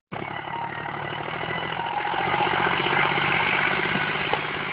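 Tractor diesel engine running steadily with an even firing rhythm, growing somewhat louder over the first couple of seconds.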